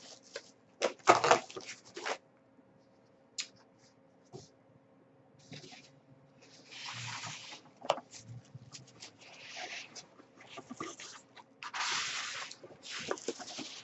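Packing paper and a cardboard box being handled as the box is unpacked: scattered bursts of rustling and crinkling, with a few sharp clicks and knocks about a second in.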